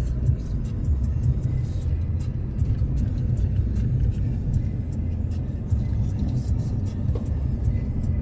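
Steady low rumble of a vehicle on the move, with background music playing over it.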